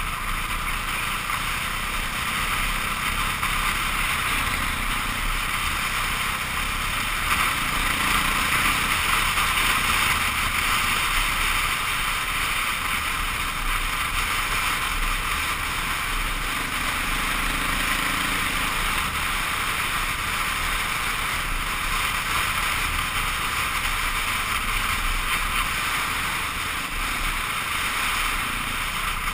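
KTM 530 EXC's single-cylinder four-stroke engine running steadily at cruising speed, heard under a loud, even rush of wind and road noise on the helmet-mounted camera.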